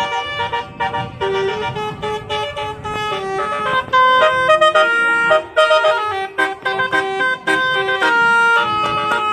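Telolet horn, a set of multi-tone vehicle horns, playing a quick tune of short notes, often several pitches at once, with longer held notes near the middle and about eight seconds in.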